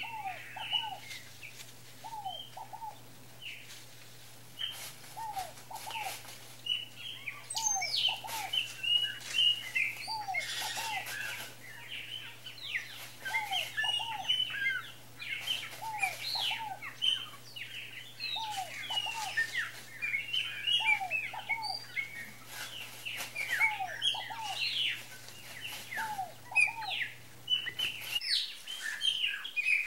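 Several small birds chirping and twittering over one another, with a lower, falling two-note call repeating every second or two. A faint steady hum sits underneath and stops near the end.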